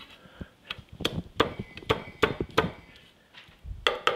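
Chef's knife chopping garlic on a wooden cutting board: separate knocks of the blade on the board, then after a short pause near the end a quick, even run of about five strikes a second as the garlic is minced.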